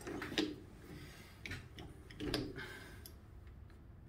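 Scattered metal clicks and clinks of a chuck key and the jaws of a stopped lathe's three-jaw chuck being worked by hand, a handful of separate knocks with the loudest a little past two seconds in.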